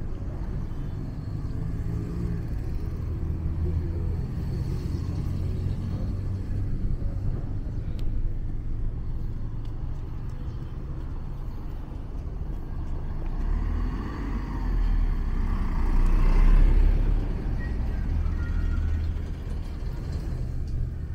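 Low, steady rumble of road traffic outdoors, growing louder as a vehicle passes about fifteen seconds in.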